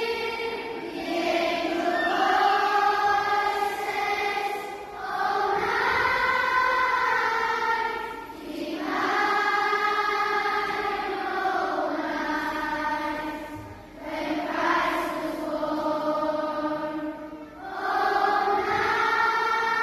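Background music of a choir singing a slow song, long held phrases with brief breaks every three to four seconds.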